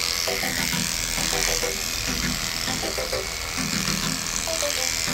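Heiniger electric dog clipper running steadily as its blade shaves through a matted coat close to the skin.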